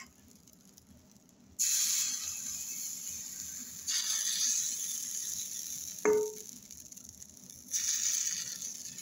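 Rice-flour batter sizzling as it is ladled into a hot cast-iron multi-cavity pitha pan: three sudden hisses, one at each pour, each fading away. A short clink about six seconds in.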